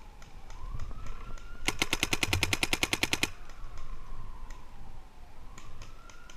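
A rapid burst of paintball marker fire, about twenty shots in a second and a half, starting about two seconds in, with scattered single paintball shots around it. Underneath, a distant siren wails slowly up and down.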